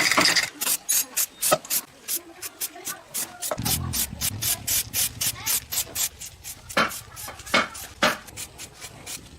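Hand filing: quick back-and-forth rasping strokes, about five a second, thinning out to a few heavier strokes later on. A low steady hum comes in about a third of the way through.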